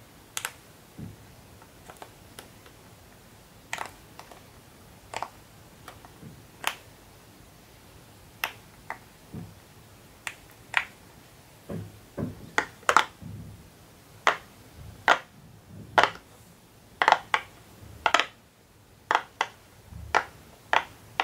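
Silicone pop-it fidget toys being pressed by fingers, their bubbles popping one at a time in short, sharp pops at an irregular pace, coming more often in the second half.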